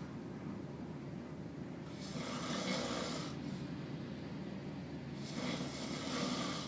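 A person snoring: two long, rasping snores about three seconds apart, over a steady low hum.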